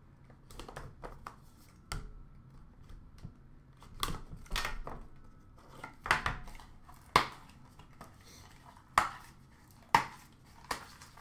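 A cardboard trading-card box being opened by hand: a box cutter slitting the seal, then the lid sliding off with scraping and rustling. Three sharp knocks come in the second half as the box parts are set down.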